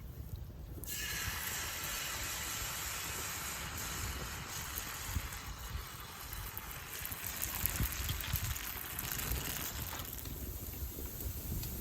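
Rice-and-mullu-murungai adai batter hitting a hot pan and sizzling. The sizzle starts suddenly about a second in and holds steady, easing a little near the end.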